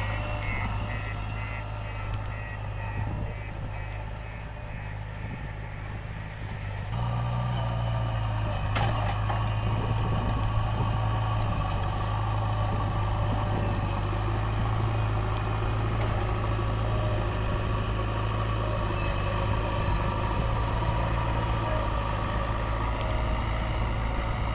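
JCB 3DX backhoe loader's diesel engine running steadily, getting louder about seven seconds in as it is worked harder. A rapid repeating beep sounds over the engine for the first few seconds.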